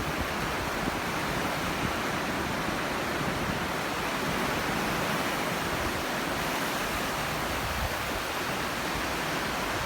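Sea surf washing onto the shore: a steady, unbroken rush of breaking waves.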